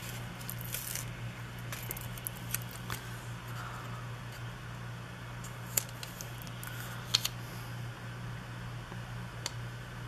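Small clicks, taps and rustles of planner paper and stickers being handled at a desk, with two sharper clicks a little past halfway, over a steady low hum.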